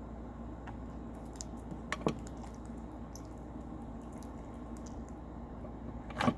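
Sticky homemade slime being played with in the hands, with faint squelches and small clicks and two sharper clicks about two seconds in. A louder knock comes near the end.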